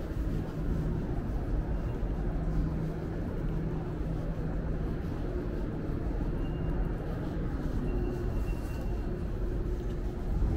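Montreal Metro Azur rubber-tyred train running: a steady rumble with a low hum.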